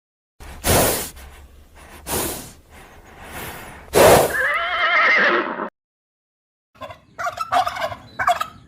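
Horse blowing three breathy blasts, the last running into a quavering whinny that falls away about four seconds in. After a short gap, a series of short pitched calls from another clip starts near the end.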